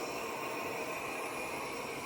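Airzeen R7 robot vacuum running: the steady whir of its suction fan, with a faint high whine in it.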